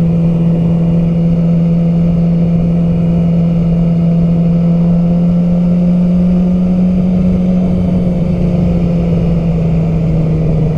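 Yamaha R6's inline-four engine running at a steady cruise, its pitch creeping up slightly in the middle and easing back near the end.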